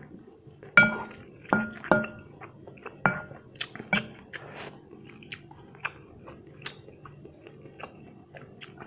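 Close-miked chewing of a mouthful of instant noodles, with a wooden spoon knocking against a glass bowl about five times in the first four seconds, each knock leaving a short ringing note.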